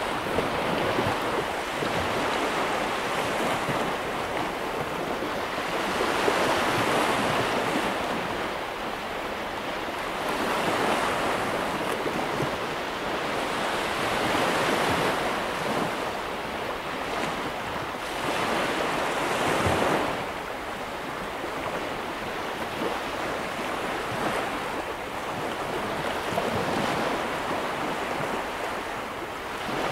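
Baltic Sea surf breaking and washing up a sandy beach, the rush of water swelling and fading every few seconds.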